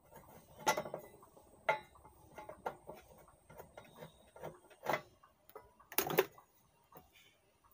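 Irregular metallic clicks and knocks from taking apart a power amplifier's metal chassis with a screwdriver: the side cover over the output transistors' heatsink is unscrewed and lifted off. The loudest knocks come about six seconds in.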